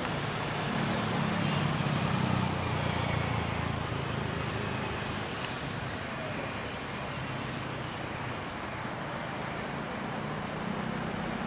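Low rumble of distant engines over an even hiss, swelling about a second in and easing off a few seconds later.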